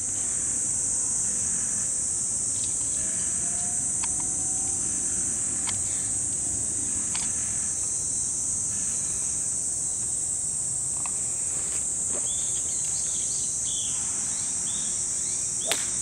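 A steady, high-pitched drone of summer insects, with a few bird chirps. Near the end a golf driver strikes the ball off the tee with a single sharp click.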